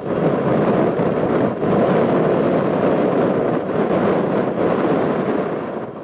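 Gusty wind buffeting the microphone in a loud, rumbling roar, mixed with the engine noise of a small twin-engine business jet rolling along the runway.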